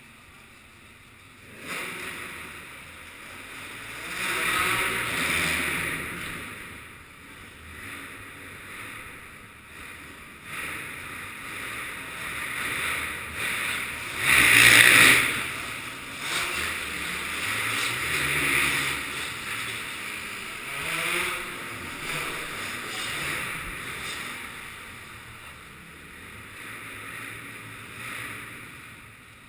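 Off-road motorcycle engines revving and fading in turn as bikes ride the dirt track, with the loudest swell about fifteen seconds in.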